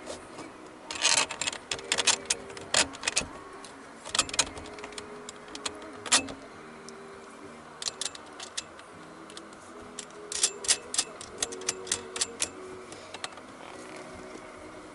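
Irregular runs of sharp clicks and taps, like small hard objects being handled, coming in clusters over a steady background hiss.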